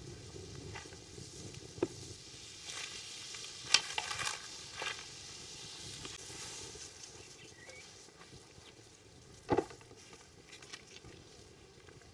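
Food sizzling as it fries in a pot over a firewood fire, with a few sharp knocks, the loudest about four seconds in and another near ten seconds in.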